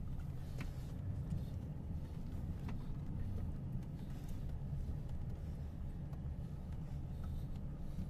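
Low, steady rumble of a vehicle heard from inside its cabin, with a few faint sharp ticks over it.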